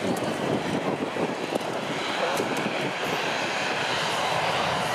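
Boeing 737 freighter's turbofan jet engines running steadily as the aircraft moves along the runway.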